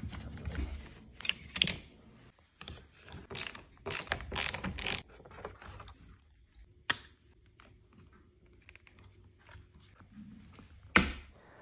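Irregular small clicks, taps and rustling from hands working on a thermostat install: a screwdriver on the plastic wall base, the unit lifted from its packaging, and the thermostat body handled against the wall.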